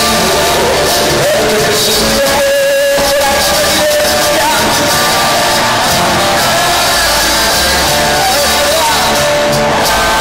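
Live rock band playing with a male lead singer's voice over it, loud as heard from within the audience. The band drops out briefly about two and a half seconds in while the voice carries on.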